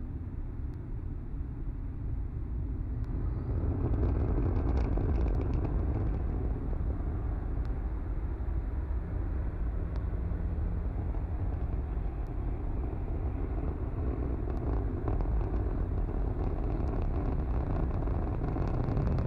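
Falcon 9 first stage's nine Merlin engines during ascent: a steady low roar with scattered crackle, growing louder about four seconds in.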